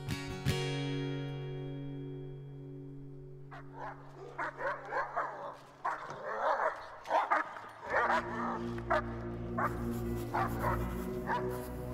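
A dog barking repeatedly in irregular bursts from about three and a half seconds in, over music: a fading guitar chord, then a low sustained drone from about eight seconds in.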